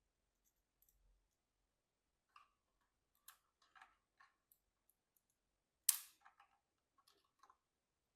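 Faint, scattered clicks and taps of a screwdriver driving screws that fasten a motherboard into a PC case, with one sharper click about six seconds in.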